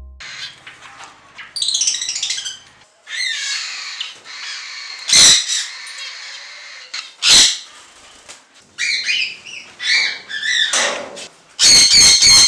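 A mixed aviary of parrots and small birds (conures, cockatiels, lovebirds) chattering continuously. Loud, harsh screeches cut in about five and seven seconds in, then come in a quick run of several near the end.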